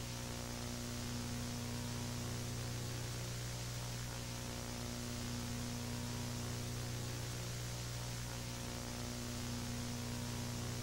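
Steady electrical hum with a hiss of static, unchanging throughout.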